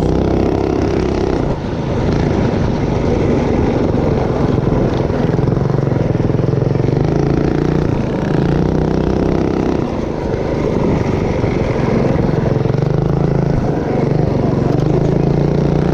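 Predator 212 single-cylinder four-stroke engine of a Motovox mini bike running under riding, its pitch rising and falling repeatedly as the throttle opens and closes, easing off briefly about two seconds in and again about ten seconds in.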